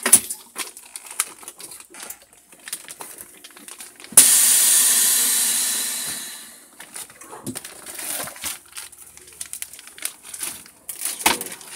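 Chamber vacuum sealer letting air back into its chamber after sealing a bag of salmon: a sudden loud hiss about four seconds in that fades out over two or three seconds. Clicks and knocks of plastic bags and the machine's lid being handled come before and after.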